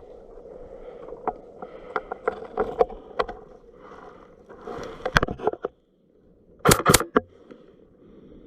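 Footsteps crunching and clicking irregularly over snow and ice, then two loud sharp cracks close together about seven seconds in.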